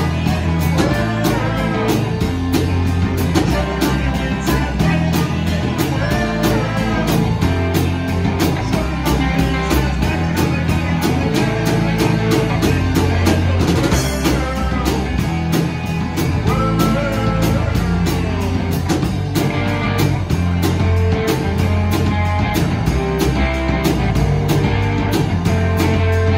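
Live rock band playing a song: electric guitars and a drum kit keeping a steady beat, with singing.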